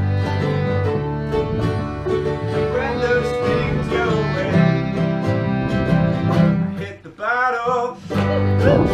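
Acoustic bluegrass band playing live: banjo picking over guitar and other strings. The playing breaks off briefly about seven seconds in, then picks up again.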